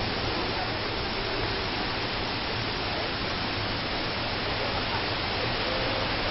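Kegon Falls in very heavy flow, about twenty times its usual volume: a steady, dense rush of falling water.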